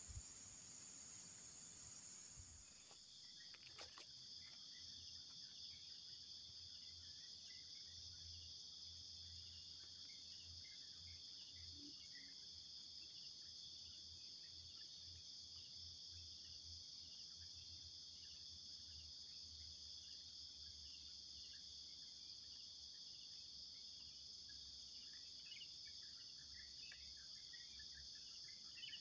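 Faint, steady high-pitched drone of insects, with a change in the insect sound about three seconds in.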